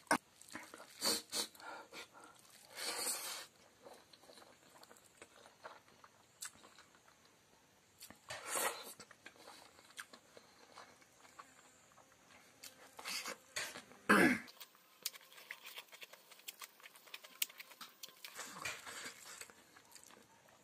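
A person eating rice and fried chicken intestine with pork fat by hand: chewing and mouth noises that come in short, scattered bursts, with small clicks and quiet stretches in between.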